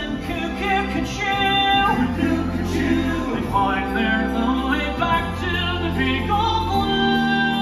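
Musical-theatre score playing at a steady level, with singing voices over sustained orchestral chords and held bass notes.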